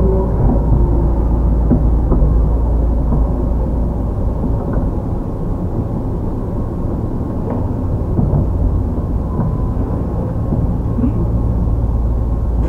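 Interior running sound of a Tobu 10030-series field-chopper electric train car under way: a loud, steady rumble of wheels on rail and traction motors, with a faint steady tone and a few light knocks from the track.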